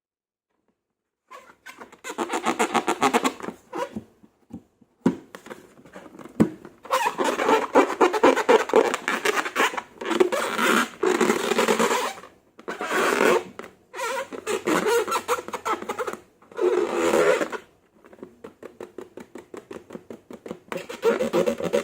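Slime being squeezed and worked by hand, giving a rapid sticky crackling and popping in bursts of a second or two, with short pauses between.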